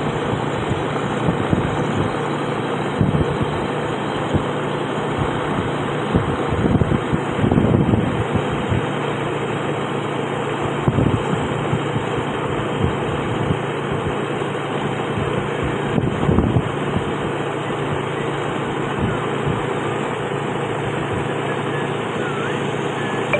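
A motor vehicle's engine runs steadily while driving, with tyre and road noise. Irregular gusts of wind buffet the microphone.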